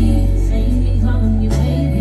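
Live R&B music over a festival sound system, with a deep held bass note that changes about one and a half seconds in.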